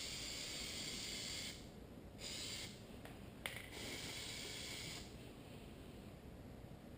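Spray can of Plasti Dip rubber coating hissing in three bursts: one of about a second and a half, a short one, and another of over a second, with a sharp click between the last two.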